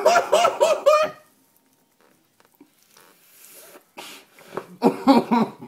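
A person laughing in a quick run of short rising-and-falling bursts, then a quieter stretch, then more voice near the end.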